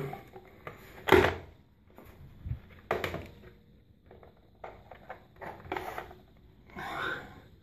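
Mastech MS8269 digital multimeter being handled and its rotary range dial turned: a run of short plastic clicks and knocks, with a quick cluster of clicks from about four and a half to six seconds in as the dial is set to the 20 mA range.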